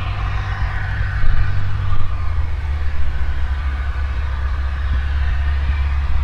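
Propeller aircraft engine running with a steady low drone, its note shifting lower about two seconds in.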